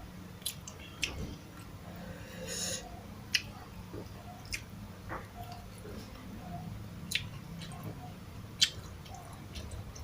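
Close-miked eating sounds: chewing and mouth smacks over rice and fried sardines, with scattered sharp clicks and a short rustling burst about two and a half seconds in.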